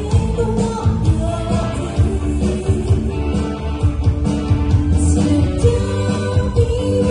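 Pop-rock song with a singer holding long notes over drums, bass and guitar.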